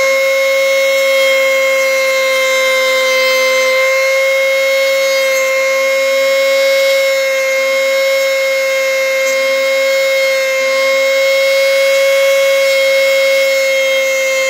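Cordless hair trimmer's motor running with a steady high-pitched hum.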